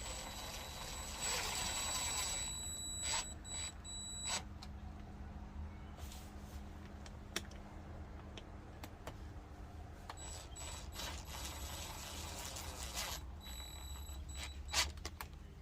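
Intermittent sharp clicks and knocks of hands-on mechanical work over a low hum, with a faint high steady tone that comes and goes twice.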